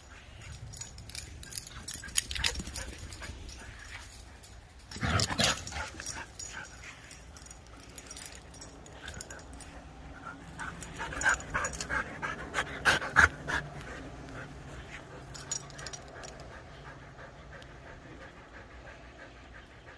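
Siberian huskies panting as they play, with several sudden louder sounds: the biggest about five seconds in, and a cluster about eleven to thirteen seconds in.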